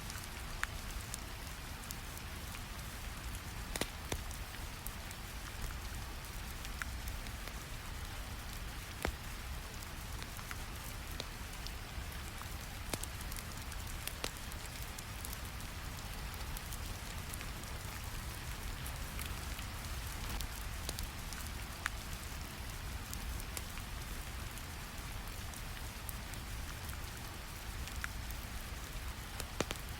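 Steady rain ambience over a low, even brown-noise rumble, with sparse sharp fire crackles popping through every few seconds.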